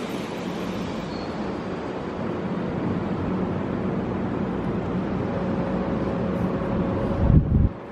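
Keihan electric train running through the station: a steady rail rumble with a low hum, ending in a heavy thump after which the noise drops away sharply.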